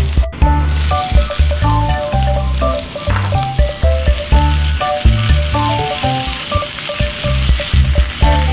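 Diced eggplant sizzling as it is sautéed and stirred in a frying pan, under background music with a melody and a rhythmic bass line.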